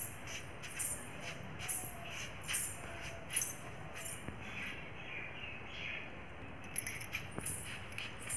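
Silver ghungroo anklets with small bells jingling with each barefoot step, a little more than once a second, falling silent for a couple of seconds midway before the jingling starts again.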